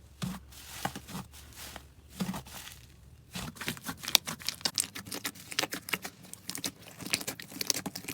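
Slime being squished and pulled by hand, giving many quick sticky clicks and pops that come much thicker from about three and a half seconds in.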